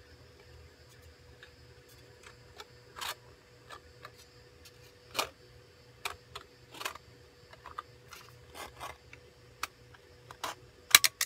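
Scissors snipping through the thin aluminum wall of an opened beer bottle, trimming off a sharp, uneven cut edge: separate crisp snips at an irregular pace, about one every half second to a second, with a few louder clicks near the end.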